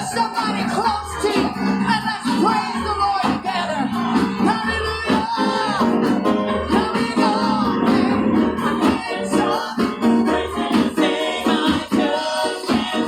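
Live gospel praise music: a church praise team of women and men singing over instrumental accompaniment, with a low note recurring about every two seconds.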